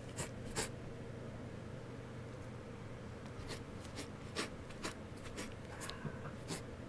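A cat licking a cardboard scratcher box: soft, irregular scratchy clicks of the tongue on the cardboard, a few each second at times.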